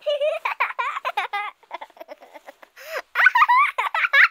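A baby giggling and squealing in quick high-pitched bursts that slide up and down in pitch.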